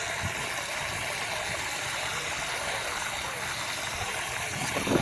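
Steady rush of water, typical of a cast iron high level cistern refilling through its float valve.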